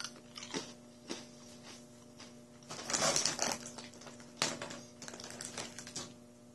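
Crunchy rice crackers being chewed, then the snack's packaging rustling and crinkling as it is handled, with a few sharp clicks; the rustle about three seconds in is the loudest part.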